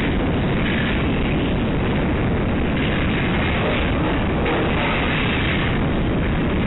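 Steady, loud rumbling din of a pig farrowing shed, with a low electrical hum beneath it.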